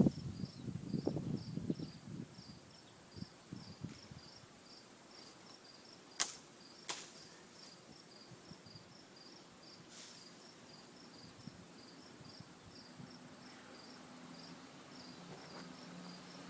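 Faint, evenly spaced high chirping of an insect, likely a cricket, going on steadily. Low rustling and thumping fill the first couple of seconds, and a few sharp clicks or snaps come about six, seven and ten seconds in.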